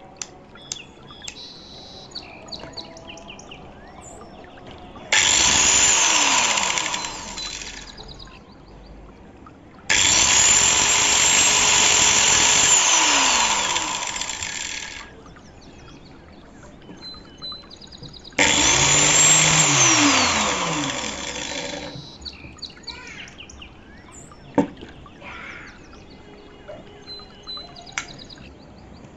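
Corded angle grinder with a cut-off disc switched on three times, running free with no load. Each run lasts a second to a few seconds, then the motor is switched off and coasts down with a falling whine.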